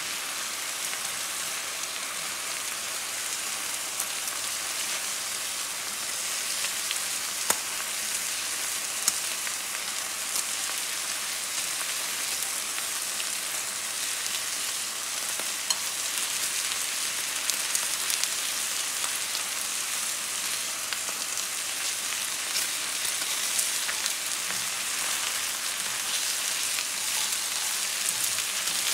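Pork pieces sizzling steadily as they brown in hot fat in a frying pan, with a few sharp clicks here and there.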